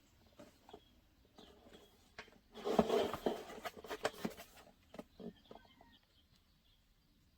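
Handling noises: scattered clicks and taps, with a louder stretch of rustling and clattering a few seconds in, then dying away to faint background.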